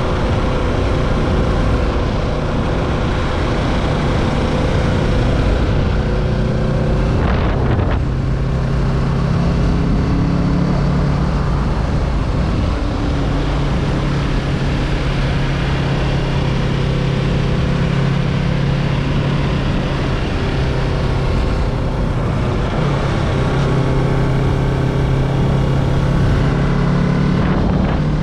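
Kawasaki Z650's parallel-twin engine running steadily under way, with wind rushing over the microphone. The engine note breaks off briefly about seven seconds in and again near the end, and settles at a different pitch afterwards.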